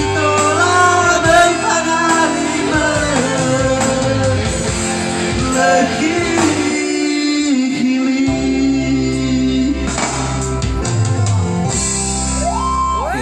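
A song: a voice singing long, bending notes over guitar accompaniment.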